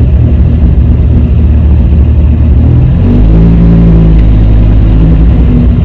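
Dodge Viper SRT-10's 8.3-litre V10 running at low speed, with a brief rise and fall in revs about three seconds in.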